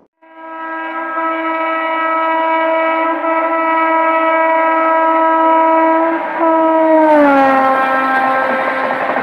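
WAP7 electric locomotive sounding one long, continuous horn as it approaches at full speed. About seven seconds in, the horn's pitch drops as the locomotive passes. The rushing rumble of its LHB coaches going by follows.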